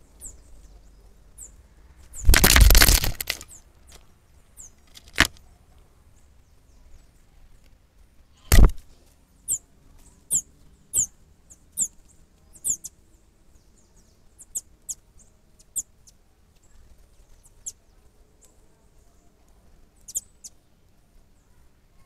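Brazilian tanager's wings flapping hard at close range for about a second, then two sharp knocks, the second the loudest, as the bird fights its reflection in the camera. After that comes a string of short, high, downward-slurred chip calls, about one a second.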